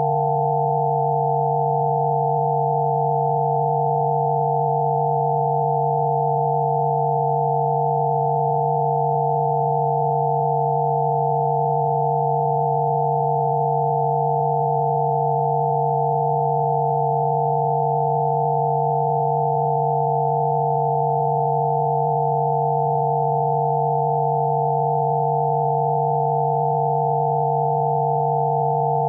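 Synthesized Rife-frequency sine tones: several pure electronic tones held together without change, one low and a cluster of higher ones, at a steady level.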